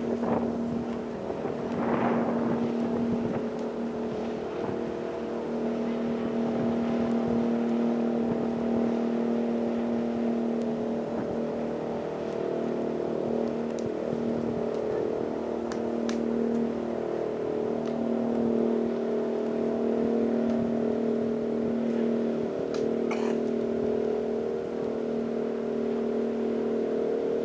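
RNLI lifeboat's engines droning steadily as it runs at speed.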